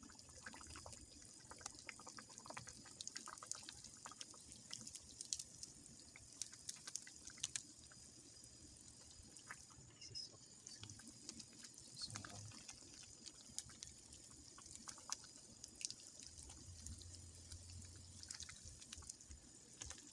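Faint bubbling and slopping of simmering soup broth in an aluminium pan as a metal ladle stirs it, with many small irregular pops and clicks.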